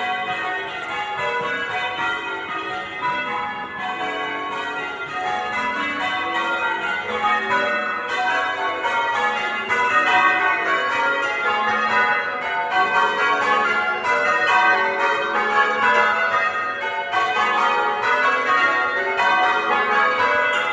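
Church tower bells change ringing, most likely eight bells in a Surprise Major method. The strokes follow one another in a rapid, continuous stream of overlapping rings.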